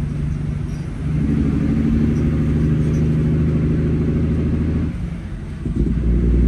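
Semi truck's diesel engine running while driving. It pulls harder about a second in, drops off briefly around five seconds in, then picks up again.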